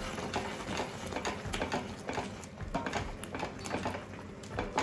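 A wooden spatula stirring and mashing thick pav bhaji masala in a stainless steel pot, with irregular soft scrapes and taps against the pot.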